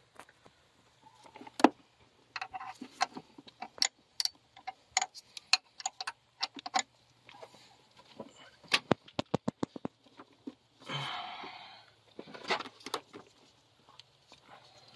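Hand tools clicking and knocking on metal under the hood as the belts are worked off: scattered sharp ticks, a quick even run of about ten clicks around nine seconds in, and a brief rasping noise about a second later.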